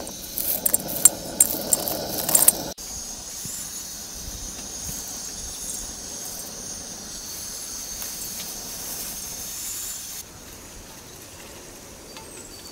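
Dry lentils clicking and clinking against a steel bowl as they are picked over by hand, then a steady high hiss from a camping gas burner under a cooking pot, which stops about ten seconds in.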